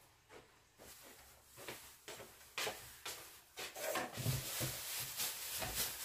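A few faint clicks, then a sharp knock about two and a half seconds in. After that a thin plastic produce bag rustles and crinkles as it is handled, with a couple of dull thumps.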